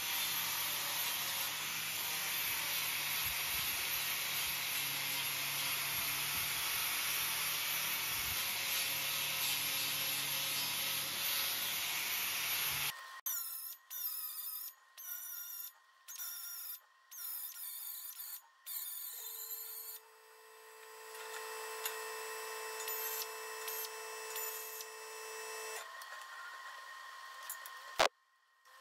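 Angle grinder grinding the rusty steel end of a roller tube, running steadily for about thirteen seconds before it stops. Then a run of short TIG welding tacks, each switching on and off, and a longer steady humming arc, with one sharp crack of a weld tack near the end.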